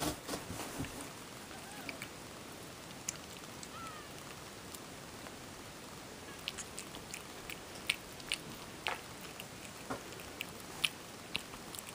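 Tonkinese cat eating raw minced meat from a bowl: wet chewing and lip-smacking clicks, coming thicker in the second half. A couple of faint short squeaks in the first few seconds.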